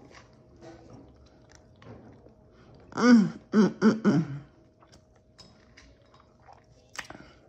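A woman's voice in a short wordless burst about three seconds in, one falling note followed by three quick ones, over faint chewing and small mouth clicks.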